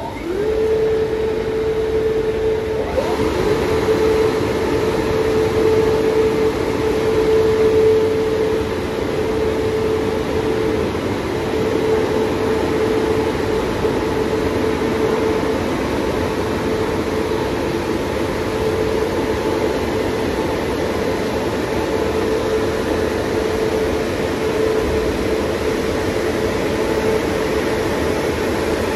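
Christ Genius Vitesse car wash Turbo Dry blowers starting up and running through the drying stage: a loud, steady rush of air with a steady hum, the hum rising quickly into place at the start and the air noise growing fuller about three seconds in.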